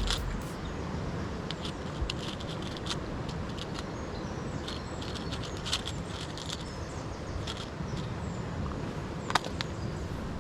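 Steady low rumble of wind on the microphone and sea surf, with scattered light clicks and a sharper tick near the end.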